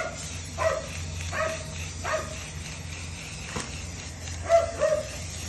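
A dog barking in short, high yaps, about seven times: a quick run in the first two seconds, then two louder ones a little past four seconds. A faint steady hiss of an aerosol spray can runs underneath.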